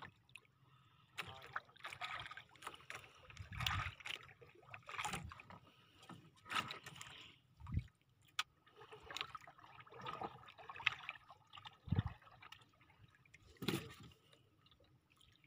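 Small waves lapping and slapping irregularly against the side of a small wooden outrigger boat, with a few dull low thumps.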